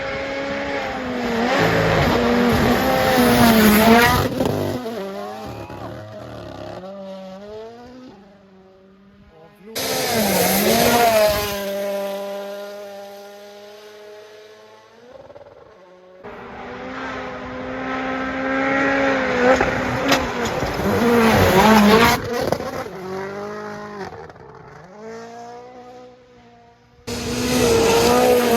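Rally1 rally cars with turbocharged 1.6-litre four-cylinder engines passing one after another at full throttle. Each engine note climbs as the car approaches and drops as it goes away. Two passes start abruptly, about ten seconds in and near the end.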